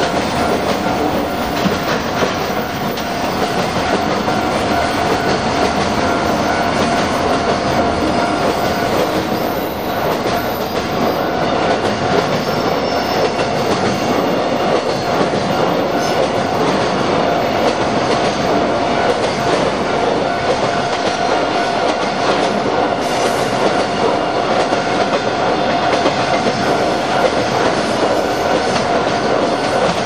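A JR freight train of container wagons passing at speed, a steady loud rush of wheels on the rails. A level-crossing warning bell rings throughout as a steady tone.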